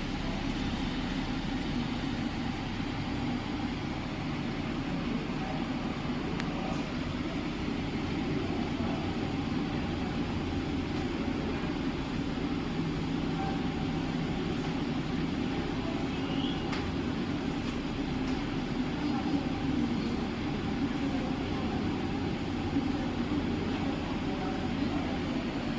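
CPU cooling fan running steadily at high speed, a constant hum with a faint steady tone above it.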